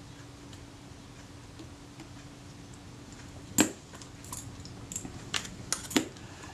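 Small metal clicks and knocks of jeweller's screwdrivers against a metal camera body as it is handled and tools are picked up, one sharp click about three and a half seconds in and several more near the end, over a faint steady hum.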